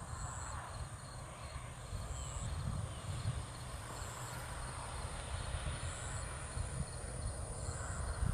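Crickets chirping steadily in a fast pulsing trill, with a higher buzz repeating about every second and a half, over a low rumble of wind or handling on the microphone.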